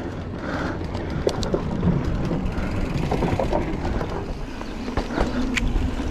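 Full-suspension mountain bike rolling fast along a trail: tyre rumble and wind buffeting the microphone, with scattered sharp clicks and rattles from the bike.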